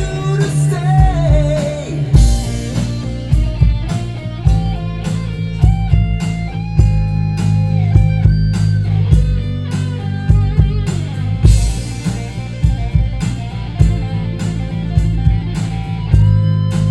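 Instrumental break of a rock ballad: a lead guitar plays held notes that bend and waver, over a drum kit keeping a steady beat and a bass line.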